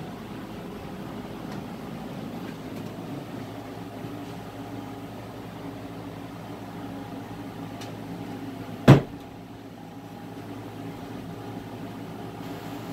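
Steady low hum, with one sharp knock of wood on wood about nine seconds in as a wooden board is handled in the wooden AZ hive cabinet.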